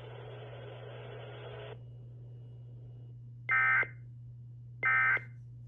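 Broadcast static hiss cuts off about two seconds in, over a steady low hum, followed by two short identical bursts of Emergency Alert System SAME data tones, a harsh buzzing warble about a second and a half apart. Short bursts right after a message ends are typical of the end-of-message code.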